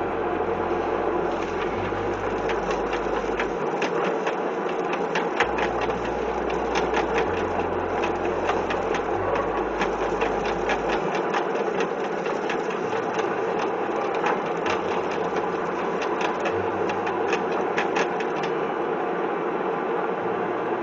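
Homemade chicken plucker running: a 3/4-horsepower electric motor belt-driving a spinning hub of rubber plucking fingers, with a steady hum. From about a second in until near the end there is rapid irregular slapping as a scalded chicken is held against the fingers.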